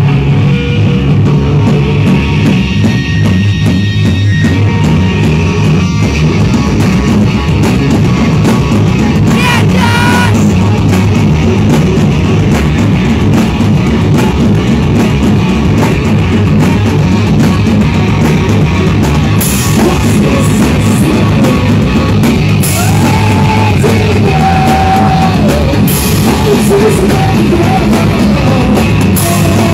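Stoner rock band playing live, loud and without a break: electric guitar with a drum kit.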